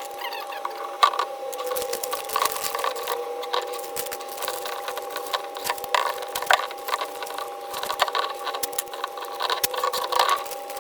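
Hands working on a steering wheel, most likely cleaning its surface before paint: irregular scratchy rubbing with many small clicks and knocks, over a steady hum.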